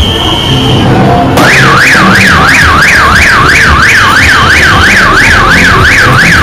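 Loud siren-like wail that sweeps quickly up and down, about three times a second, starting about a second and a half in, over loud carnival parade music. A steady high whistle-like tone sounds during the first second.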